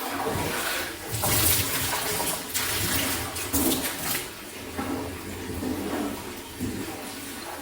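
Water rushing and splashing in a washing machine tub being rinsed out, starting suddenly, loudest for the first four seconds, then easing to a quieter steady flow.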